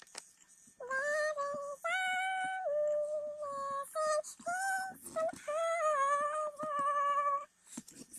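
A girl singing in a high, chipmunk-style voice: held notes that bend slightly and break between phrases, starting about a second in.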